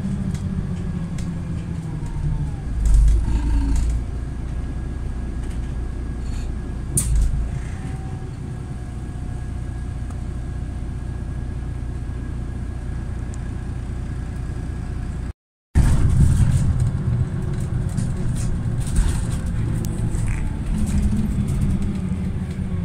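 Steady engine and road rumble heard from inside a moving city bus, with two short low thumps about three and seven seconds in. About two-thirds through, the sound cuts out completely for a moment, then returns a little louder.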